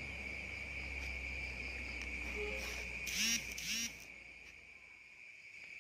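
Crickets chirring steadily in a high, even drone, with two short, wavering voice-like cries about three seconds in that the fishermen hear as strange sounds.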